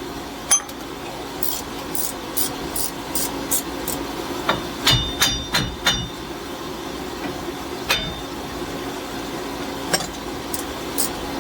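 Hand tools working on a car's front hub bolts. A run of light, evenly spaced metal clicks is followed about 4.5 to 6 seconds in by a cluster of louder, ringing metal clinks, with a few single clinks later. A torpedo heater hums steadily underneath.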